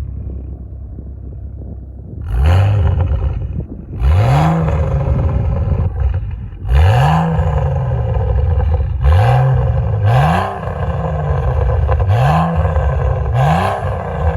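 Straight-piped BMW 335i's N55 turbocharged inline-six with an Akrapovic exhaust, running low at first and then pulling hard. Its revs climb quickly and drop sharply about six times as it shifts.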